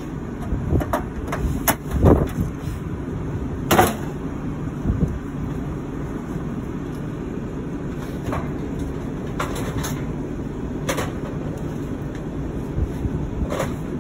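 Things being handled while going through a box of tools and hardware: scattered knocks and clinks at irregular times, the loudest about four seconds in, over a steady low rumble.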